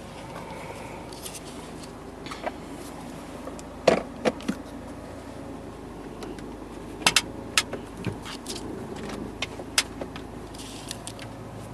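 Low steady hum inside a car's cabin, with scattered sharp clicks and rattles, loudest about four seconds in and again around seven seconds, like keys and controls being handled.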